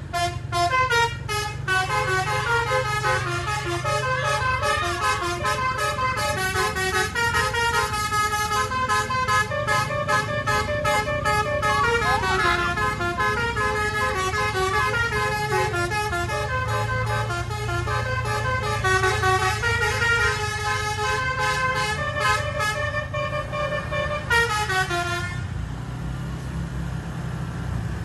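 Tunggal Jaya bus's multi-tone 'telolet' basuri horn playing a fast melody of stepping notes over the bus's engine running. The horn stops about 25 seconds in with a falling pitch, leaving the engine.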